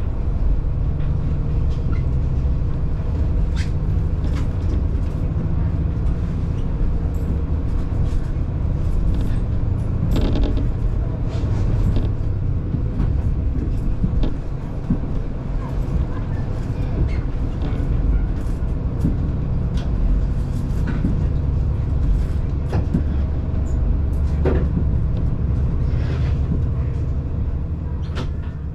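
Diesel railcar running along the line, a steady low engine and running rumble with scattered light clicks and knocks from the wheels on the track.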